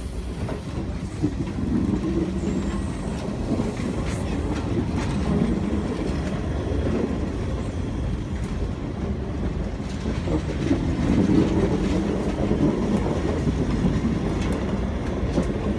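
Vintage railway passenger carriages rolling slowly past: a steady low rumble of steel wheels on the track, with a few sharp clicks as wheels cross rail joints.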